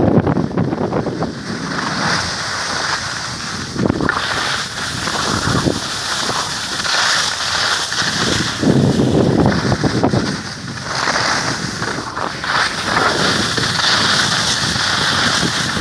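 Skis hissing and scraping over the snow while the skier films, with wind rushing over the microphone; the noise swells and eases every couple of seconds as the skier turns.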